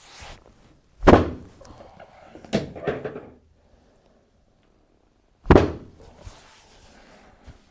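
Three heavy thuds on a chiropractic treatment table, about a second in, a second and a half later and near 5.5 s, with some rustling between the first two: a hip adjustment in internal rotation with the leg pulled down the table.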